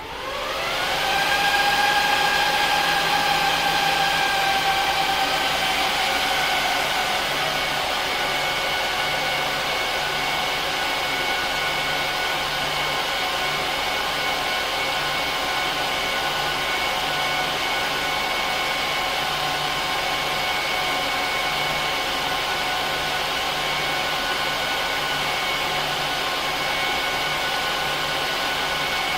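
HP ProLiant DL380p Gen8 server's cooling fans spinning up as it boots: a fast-rising whine with a rush of air, loudest in the first few seconds. The whine then eases down a little, about five to seven seconds in, and settles into a steady high whine and hiss as the fans throttle back after the start-up full-speed run.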